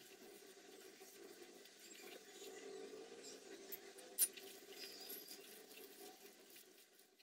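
Faint wet squelching and pattering of hands mixing chicken pieces with gram flour, spices and sliced onion in a glass bowl, over a steady low hum. A single sharp click about four seconds in.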